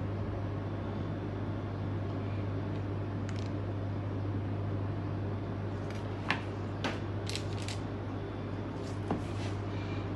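Metal spoons clinking several times against each other and the bowl while coating balls in melted chocolate, starting about halfway through, over a steady low hum.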